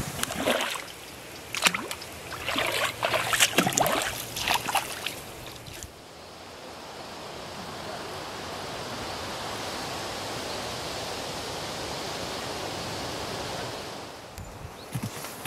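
Close rustling and clicking as hands handle fishing tackle and bait a hook. About six seconds in, this gives way to a steady rushing noise that lasts about eight seconds, and then the handling clicks return.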